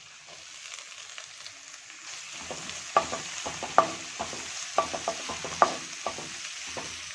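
Chopped vegetables sizzling in hot oil in a wok. From about two and a half seconds in, a spatula scrapes and knocks against the pan once or twice a second as they are stir-fried.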